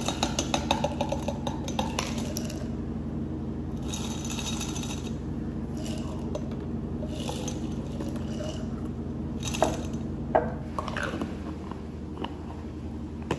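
Ice cubes rattling and clinking in a glass mason jar as it is tipped and shaken, in several short bursts, with a couple of sharper knocks of glass being set down near the end. A steady low hum runs underneath.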